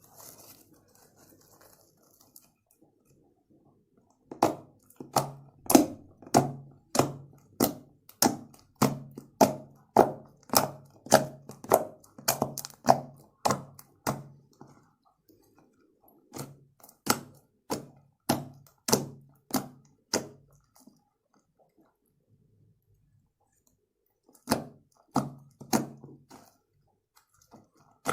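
Fluffy hand-soap slime being pressed and squeezed by hand, making sharp popping sounds about twice a second in three runs with short pauses between them.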